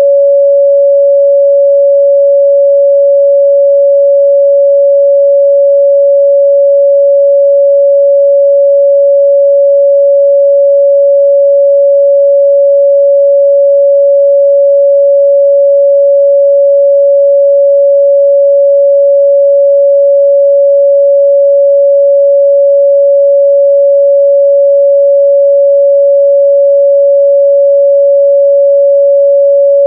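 Continuous 562 Hz sine-wave test tone: one pure, steady, loud midrange pitch that holds unchanged throughout.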